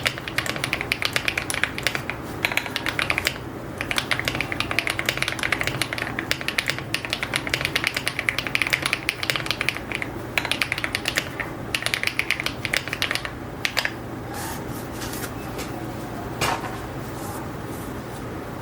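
Fast typing on a 75% mechanical keyboard with metal keycaps and pre-lubed HMX Latte linear switches: a rapid run of keystrokes that thins out about three-quarters of the way through into a few single key presses.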